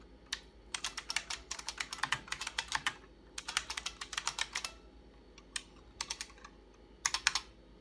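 Typing on an IBM Model F buckling-spring keyboard: quick runs of key clicks broken by short pauses, with a last short run near the end.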